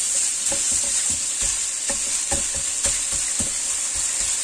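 Minced pork sizzling in oil in a hot nonstick wok, with a spatula scraping and tapping against the pan in quick, irregular strokes as it breaks the meat apart.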